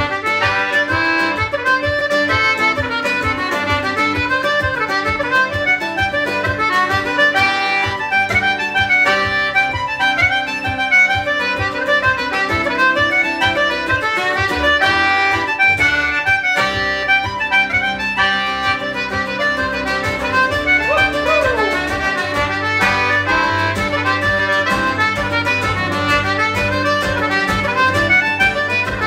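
Traditional Irish jig played live, the concertina carrying a fast run of melody notes over a steady strummed accompaniment.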